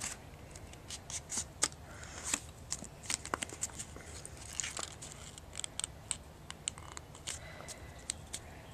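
Stiff index card being folded and creased by hand: irregular crisp crinkles and short clicks of the card.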